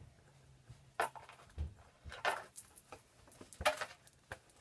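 Several short knocks and rustling scrapes of small objects being handled and set down, the loudest about three and a half seconds in.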